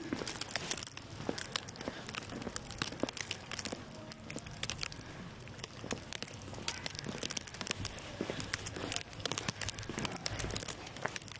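Footsteps on a walk in light snow, with dense, irregular crackling and ticking throughout.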